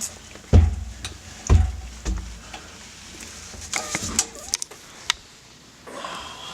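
Heavy thuds and knocks from a forged-steel door being set in place on its hinges: three deep thumps in the first two seconds, then lighter clicks and knocks around four to five seconds in.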